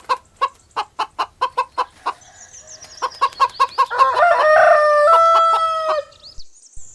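Hen clucking in a quick run of short, evenly spaced clucks, then giving longer, drawn-out calls that step in pitch. The calls stop about six seconds in.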